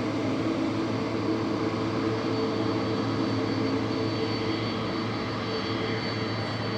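Boeing 767 twin jet engines idling steadily while the airliner holds on the runway before takeoff: a low hum with a thin high whine that comes in a couple of seconds in.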